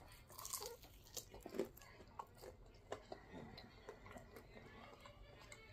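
Faint close-up chewing of a fried chicken wing, with a few louder wet smacks and clicks of the mouth in the first three seconds.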